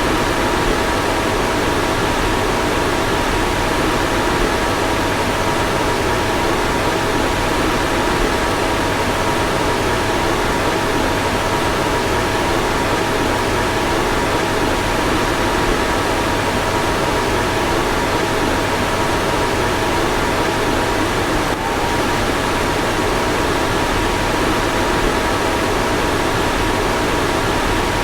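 A car's ventilation fan blowing steadily, a constant even rush of air with a faint steady hum. There is a tiny click about twenty-two seconds in.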